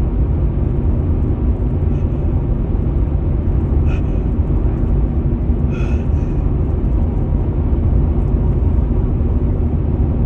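Steady low rumble of a car on the move, heard from inside the cabin: engine and road noise with no break.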